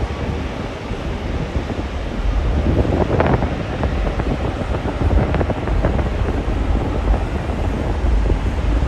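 Wind buffeting the microphone: a low, gusty rumble that grows stronger about two and a half seconds in.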